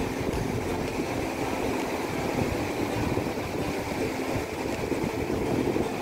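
Small waves washing onto a sandy beach: a steady rushing surf with low rumbles and no breaks.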